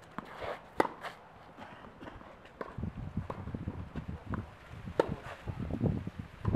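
Tennis rally on a clay court: two sharp racket-on-ball hits about four seconds apart, the second a forehand, with fainter knocks of the ball between them. Wind rumbles on the microphone from about halfway through.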